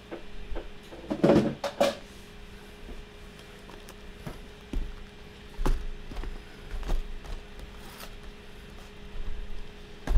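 Cardboard trading-card boxes being handled: picked up, slid and set down, giving scattered light knocks and scrapes, the loudest cluster about a second in. A faint steady hum runs underneath.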